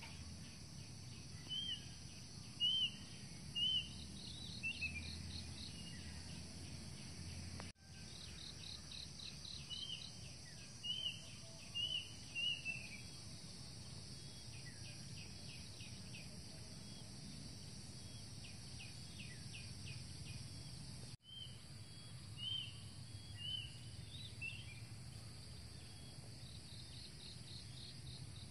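Outdoor insect chorus: a steady high hiss with rapid pulsing trills, over which a bird repeats short chirped notes in quick groups of three or four. The sound cuts out briefly twice.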